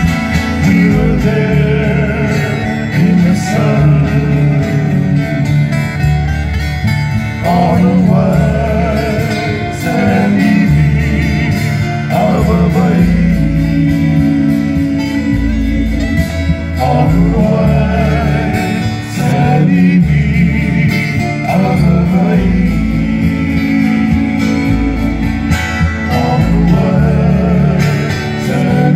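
Live Hawaiian music from a trio: male singing with vibrato over strummed acoustic guitars and a plucked bass guitar.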